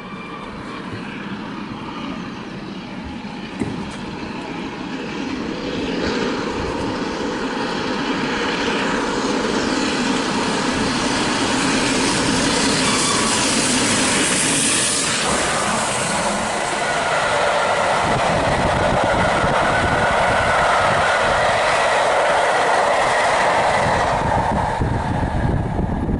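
A train approaching and running past at speed, growing louder over the first dozen seconds and then staying loud as it passes close by.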